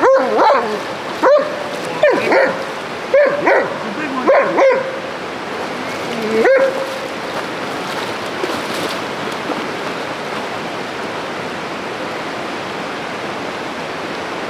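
German shepherd barking repeatedly, six or seven barks over the first seven seconds or so, with the steady rush of the river underneath. After the barks only the river is heard.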